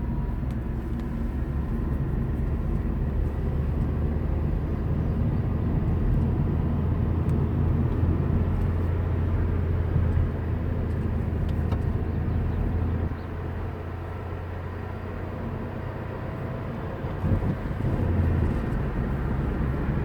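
A car driving: a steady low rumble of engine and road noise, heard from inside the moving car. It eases off about two-thirds of the way through and picks up again near the end.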